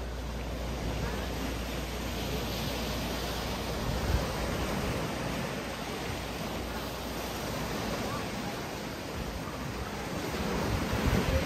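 Sea waves breaking and washing onto the beach and rocks: a steady rush of surf.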